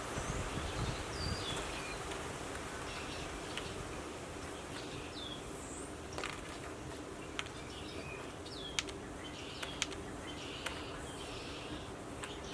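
Outdoor ambience: wind buffeting the microphone at first, small birds chirping on and off, and a faint steady insect-like hum. In the second half come several sharp clicks.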